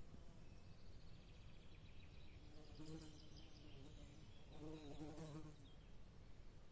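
Faint pine-forest ambience with songbirds trilling high and thin, and twice a brief, faint low call, about three and five seconds in.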